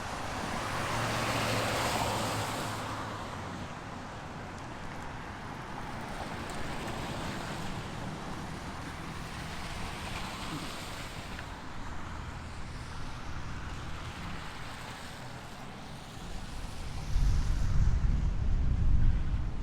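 Outdoor street sound: vehicles passing, rising and fading twice. Near the end, wind buffets the microphone loudly.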